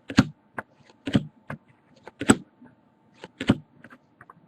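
Typing on a computer keyboard: irregular key clicks, a few a second, with short pauses between.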